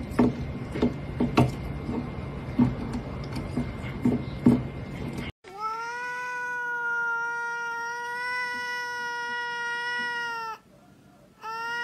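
A cat gnawing on a wooden chair arm, its teeth making irregular clicks and knocks. About five seconds in, after a sudden cut, a second cat yowls: one long meow held at a steady pitch for about five seconds, a brief gap, then the same cry starts again near the end.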